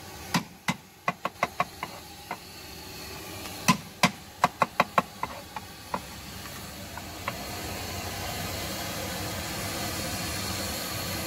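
Cleaver chopping garlic and shallots on a wooden cutting board: sharp, irregular knocks in two quick runs, then a few scattered ones. Under them a steady hiss from the gas burner under the wok grows louder over the second half.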